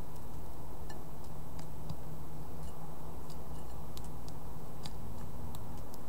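Small bird pecking at mixed birdseed in a terracotta saucer: light, irregular ticks and clicks of beak on seed and dish, a few a second, over a steady low background rumble.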